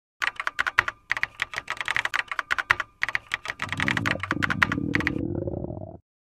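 Rapid clatter of typing on a mechanical computer keyboard, with two brief pauses. The clicks then thin out and stop, and a long, low, gurgling stomach growl comes in, rising slightly and cutting off near the end.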